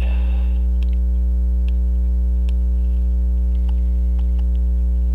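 Steady loud electrical mains hum, with scattered faint light clicks of small metal tools on a watch movement, a few of them close together past the halfway point.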